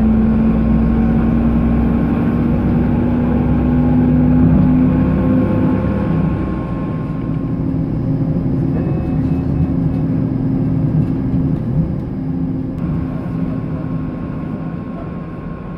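Model railway train carrying a camera car, running along the layout track: a steady mechanical hum over a low rumble. It eases about six seconds in and fades gradually toward the end.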